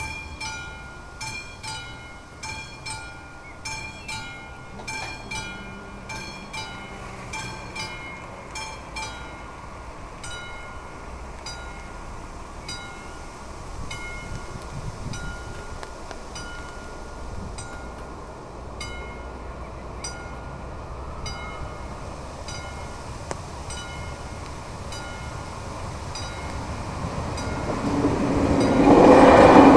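Level-crossing warning bells of an AŽD 71 crossing ringing, several bells striking rapidly and overlapping at first. About ten seconds in they thin to a single bell striking at a slower, steady pace, the one bell that keeps ringing with the barriers down. Near the end a train approaches with a fast-rising rumble.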